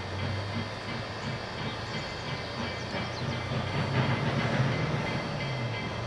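K-27 narrow-gauge steam locomotive 463 working as it moves the D&RGW rotary snowplow OY: exhaust and rolling rail noise, growing louder about four seconds in.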